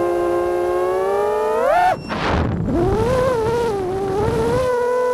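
Drone motors and propellers whining in a steady tone with many overtones. About two seconds in the pitch climbs sharply, then breaks into a brief rush of noise with a low rumble. After that the whine returns, wavering up and down in pitch.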